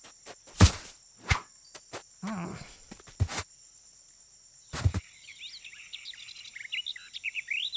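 Cartoon sound effects: a few soft thuds as a striped cushion drops onto the grass, over a steady high chirring of crickets. From about five seconds in, birds start twittering.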